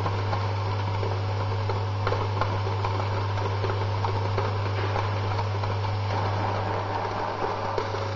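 Vibratory bowl feeder running, with a steady low electromagnetic hum and a dense rattle of small medical-device components clicking against the steel bowl and spiral tracks as they are shaken along.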